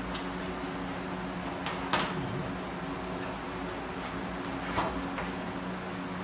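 Two light knocks about three seconds apart as hood pins and their clips are handled on a car hood, over a steady low hum.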